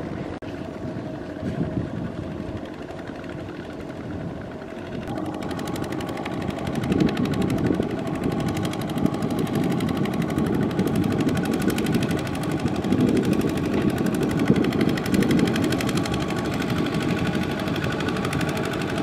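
Kubota RT120 walking tractor's single-cylinder diesel engine running with a fast, even chugging, working under load as it drags a rice-laden trailer through deep paddy mud. It gets louder about five to seven seconds in.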